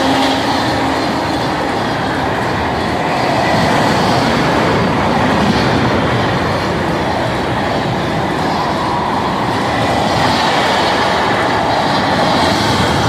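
Train passing close by at speed: a loud, steady rumble and clatter of wheels on rails. The tail of a horn blast dies away in the first second.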